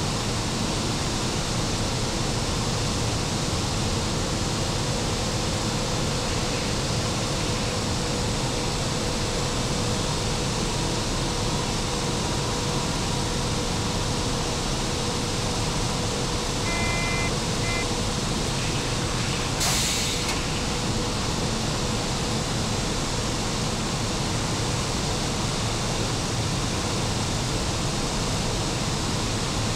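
Steady rushing noise of an E 94 electric locomotive's machine room under way, with a faint steady hum underneath. A short double beep comes about two-thirds of the way in, followed a few seconds later by a brief hiss.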